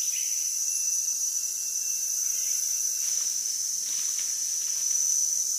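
A steady, high-pitched chorus of forest insects, one continuous shrill drone that neither pauses nor changes.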